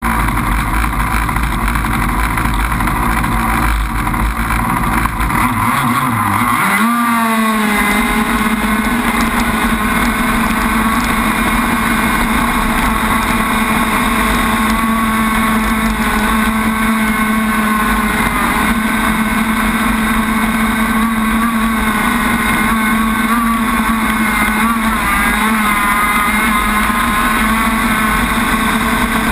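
Onboard sound of an Enforcer Crackerbox RC boat's gas engine running hard: rough and noisy for the first several seconds, then rising quickly in pitch about seven seconds in and holding a steady high note at speed. Water spray and wind hiss run underneath.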